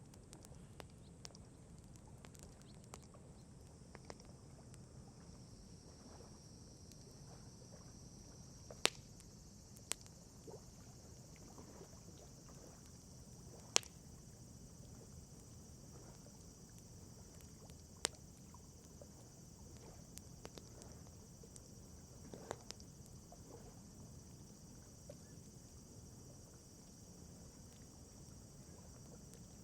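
A wood campfire crackling quietly, with a few sharp pops scattered through it, the four loudest in the middle. A steady high-pitched hiss runs underneath.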